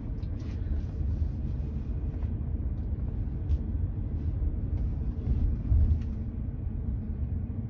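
Steady low road rumble and tyre noise heard inside the cabin of a Tesla Model 3 electric car rolling at low speed.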